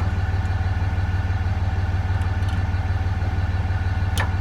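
The engine of the vehicle towing the hay trailer idling steadily, a low hum with a fast, even pulse. A brief sharp tick just before the end.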